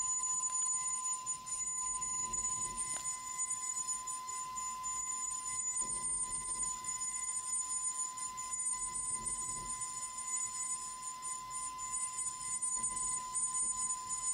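Air Turbine Spindles 602BT40 air-turbine spindle running at 65,000 rpm as a 2 mm end mill cuts composite: a steady whine over a low hiss of cutting noise.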